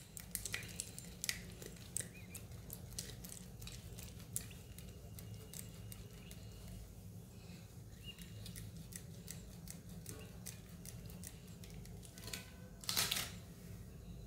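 A block of processed cheese grated on a round stainless-steel grater: faint scraping strokes with light clicks, and a louder scrape near the end.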